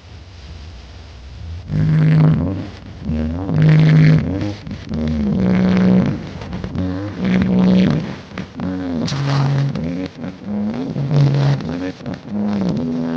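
Music played very loud through a huge carnival sound system: a sliding, pitch-bending lead melody over deep bass, coming in about two seconds in.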